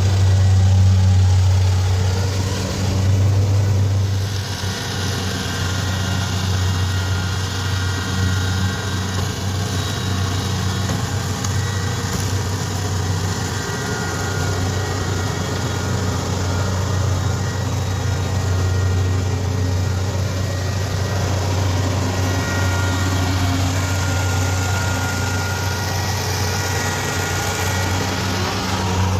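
Kubota DC-70 Plus combine harvester running steadily while working in a rice field: a deep, even engine hum under a constant mechanical rush.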